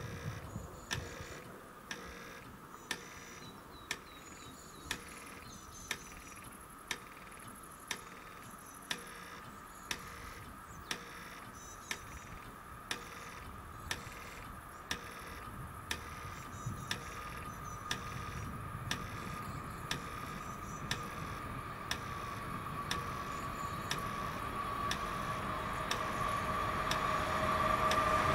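Level crossing's audible warning signal ticking about once a second while the barriers are down. From about halfway through, an approaching train's rumble and a high whine from the rails grow steadily louder.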